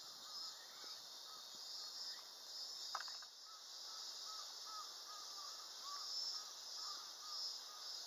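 A bird calling in a run of short, repeated notes over a steady high-pitched hiss, with a single sharp click about three seconds in.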